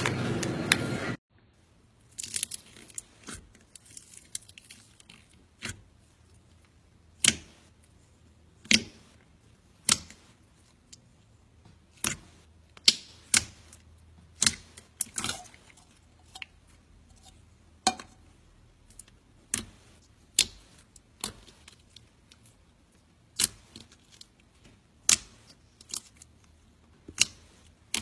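Fingers pressing and poking thick slime, making sharp popping clicks as air is squeezed out, roughly once a second with softer crackles between. Before that, a second of steady noise cuts off suddenly.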